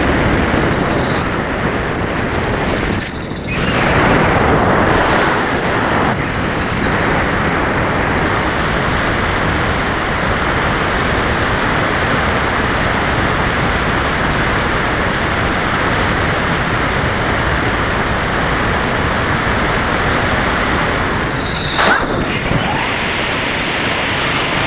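Bixler RC plane in flight, heard from its onboard camera: a steady, loud rush of airflow over the microphone mixed with the electric motor and propeller running. The noise dips briefly about three seconds in and spikes once shortly before the end.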